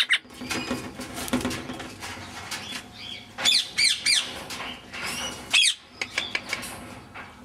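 Grey Indian ringneck parakeet chattering quietly, then giving a quick run of short, sharp chirps about halfway through and one more a couple of seconds later.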